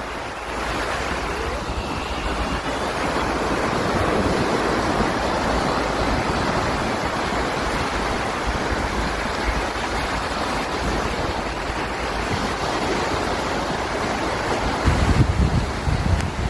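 Small sea waves breaking and washing up a sandy shore in a steady, even rush. Wind buffets the microphone, with heavier gusts rumbling near the end.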